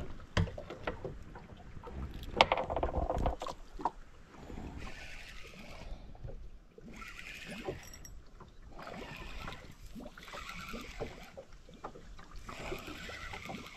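Water slapping against the hull of a small boat, a hazy swell every second or two. In the first few seconds there are sharp knocks and clicks from fishing tackle being handled on board.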